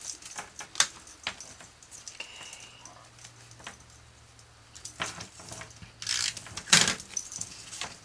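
Cardstock panels being handled and pressed into place by hand: scattered light taps, clicks and paper rustles, with a louder rustle and a sharp tap about six to seven seconds in.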